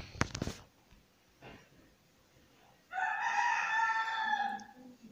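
A rooster crows once, a single call of nearly two seconds beginning about three seconds in. A few sharp clicks come right at the start.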